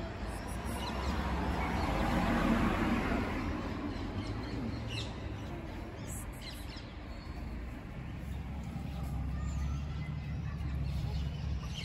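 A vehicle passing by: a wash of noise that swells about two seconds in and fades away, over a steady low rumble of traffic that grows again near the end.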